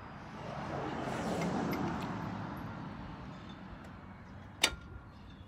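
A passing car's road noise swells and fades over about three seconds. Near the end comes a single sharp clank, the loudest sound.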